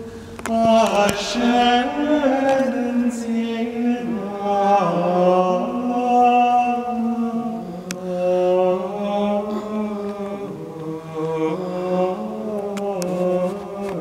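A male cantor chanting unaccompanied plainchant: a single melody line moving stepwise through long held notes. It is one of the Propers of the Mass, chanted before the Gospel.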